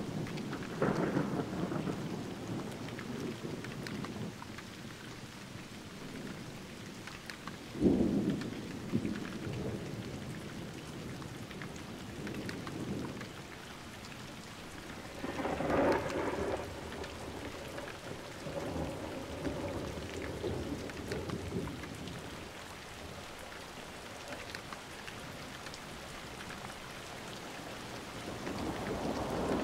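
Thunderstorm: steady rain falling, with rolls of thunder over it. A sharp, loud thunderclap comes about eight seconds in, another rumble around sixteen seconds, and thunder builds again near the end.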